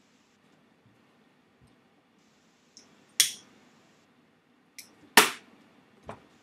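A few sharp clicks from someone working a computer at a desk close to the microphone. The two loudest are about two seconds apart, each with a fainter click shortly before it, and a weaker one comes near the end.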